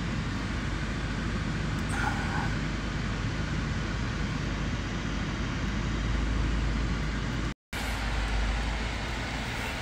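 Steady rumble of a car driving, with road and engine noise heavy in the low end. It cuts out completely for a split second about three-quarters of the way through.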